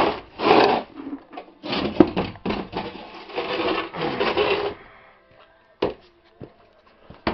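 Rough scraping and rubbing noises in close bursts for about four and a half seconds, then a few sharp clicks.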